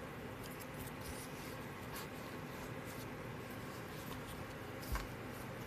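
Faint rustle and light tapping of cardstock album pages being handled and turned, over a steady background hiss, with one soft thump about five seconds in.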